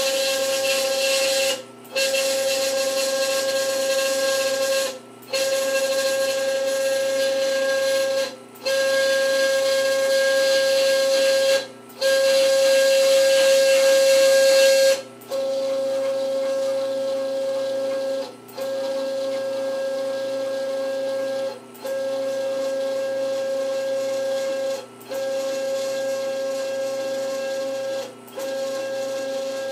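Stepper motors of a home-built CoreXY 3D printer driving the print bed along its Z axis: a steady mid-pitched whine in runs of about three seconds, each broken by a brief pause. The first half is louder and hissier than the second.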